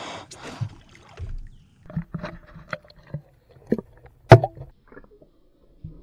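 A dolphin breathing close to a small boat: a short breathy whoosh right at the start. Then water sloshing and splashing with irregular knocks against the hull, the loudest a sharp knock a little past four seconds in.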